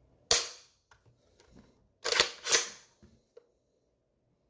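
Steyr AUG A3 M1 trigger pack, fitted with a Ratworks metal sear, being dry-fired by hand. A sharp click comes a moment in as the sear lets the hammer fall, then a few faint ticks, then two more sharp clicks about half a second apart around two seconds in.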